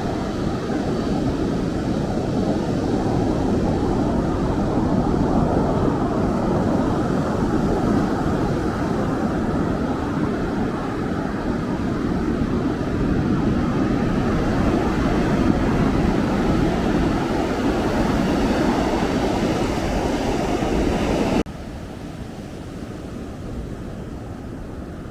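Ocean surf breaking with wind on the microphone: a steady noise that swells and eases, dropping suddenly to a lower level about 21 seconds in.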